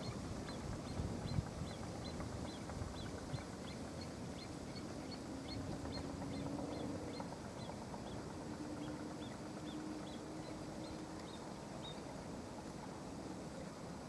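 Outdoor lakeside ambience: a low rumble of wind-like noise with a thin high chirp repeated steadily two or three times a second, dying out near the end. A faint low hum comes and goes in the middle.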